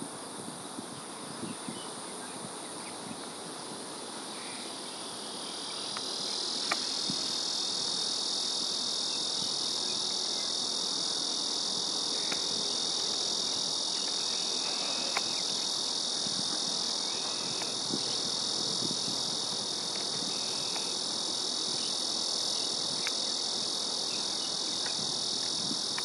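Insect chorus: a steady high-pitched buzzing that grows louder about five or six seconds in and then holds, with a few faint ticks.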